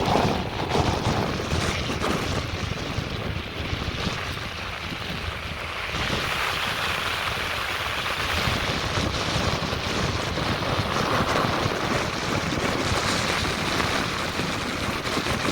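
Snowstorm wind buffeting the microphone in an uneven low rumble. About six seconds in, a steadier hiss rises and carries on.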